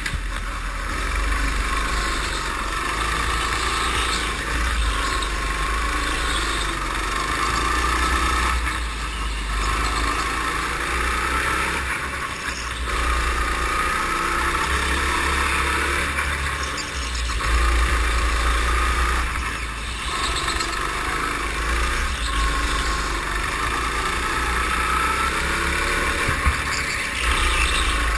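Go-kart engine running hard through a lap, its revs rising and falling with the corners, heard from the kart itself with a deep rumble underneath.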